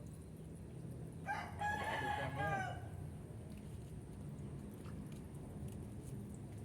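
A rooster crowing once, a single call of about a second and a half.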